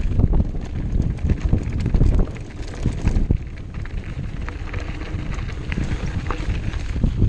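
Mountain bike rolling fast down a loose gravel track: wind buffets the camera microphone, the tyres crunch over stones, and the bike rattles and clicks. The rumble is louder for about the first two seconds, then eases off.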